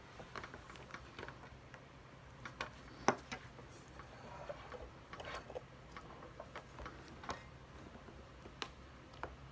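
Scattered clicks and snaps of a plastic bath toy being cut and pried open by hand, the sharpest snap about three seconds in, over a low steady hum.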